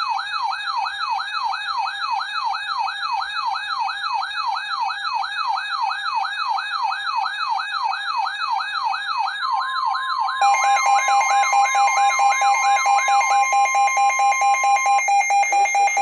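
Electronic wailing siren warbling rapidly up and down, about two to three sweeps a second. About nine seconds in, a steady alarm tone joins it. About a second after that, a louder rapid pulsing alarm beep starts and continues after the warble ends.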